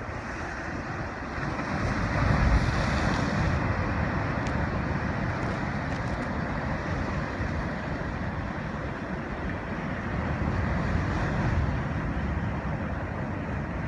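Rough sea surf breaking and washing over breakwater rocks, with strong wind buffeting the microphone as a low rumble. The surge swells loudest about two seconds in and again around eleven seconds.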